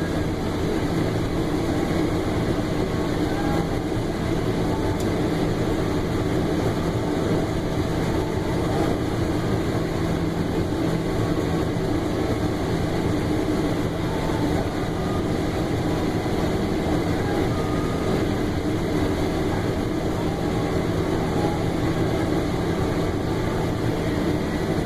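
Combine harvester running steadily while harvesting corn: a constant engine and machinery drone with a steady low hum.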